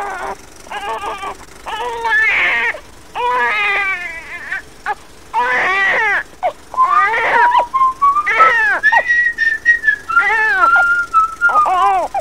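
Soundtrack of short bursts of cries that bend up and down in pitch. A whistled tune of held, stepping notes comes in about halfway.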